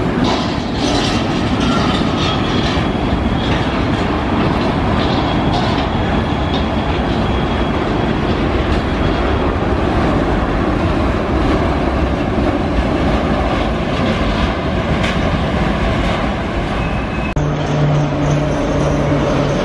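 Freight train of double-deck car-carrier wagons rolling past with a steady rumble of wheels on rails, rail joints clicking, and thin high wheel squeals in the first half. About 17 seconds in, this gives way abruptly to an electric locomotive passing with a steady low electric hum.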